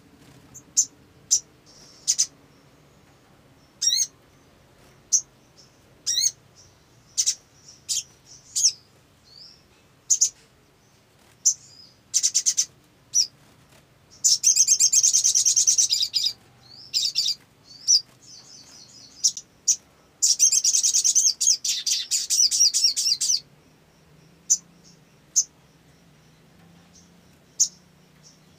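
Olive-backed sunbird calling: a string of sharp, high chirps and quick whistled notes, broken twice, about halfway and again after about 20 seconds, by a longer rapid chattering song of a couple of seconds.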